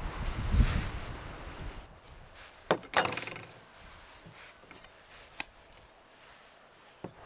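Kitchen knife and avocado handled on a wooden table: a rustle of the avocado being taken from a wicker basket, a sharp pair of knocks about three seconds in, then a single sharp tap about five and a half seconds in as the knife blade is struck into the avocado stone, and another light click near the end.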